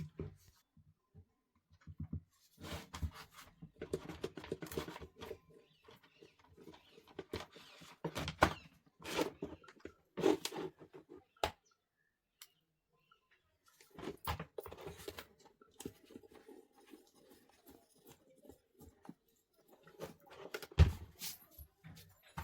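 Table fan parts being handled while the fan is cleaned and serviced: irregular scraping, rubbing and small clicks and knocks in bursts, with a pause of a couple of seconds midway and a sharper knock near the end.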